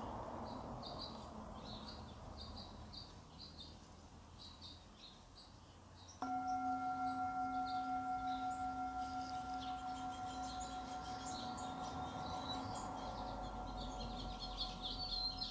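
A singing bowl struck once about six seconds in, ringing on with a gentle wavering as it slowly fades. Small birds chirp throughout.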